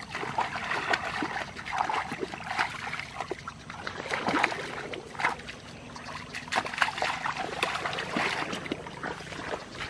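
Legs wading through shallow muddy water, with irregular splashing and sloshing.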